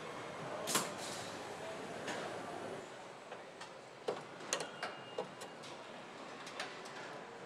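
Car assembly line: a steady hum and hiss of background noise with scattered sharp clicks and light knocks from parts and tools. The loudest click comes just under a second in, and a quick run of clicks follows about four to five seconds in.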